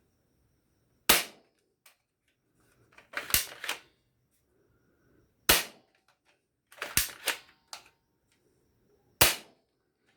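Toy shotgun firing: a series of sharp shots every two seconds or so, some coming in quick clusters of two or three pops, with small mechanical clicks in between.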